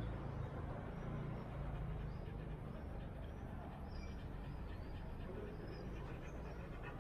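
Low rumble of street traffic fading away, with small birds chirping faintly and repeatedly from about a second in.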